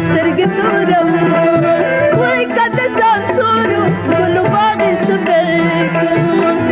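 A woman sings a Pashto song in a wavering, ornamented melody over steady sustained instrumental tones and hand-drum beats.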